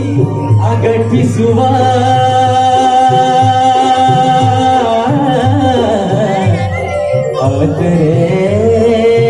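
Live Kumaoni folk song played through a stage sound system: singing with instrumental backing, with a long held note and melodic glides.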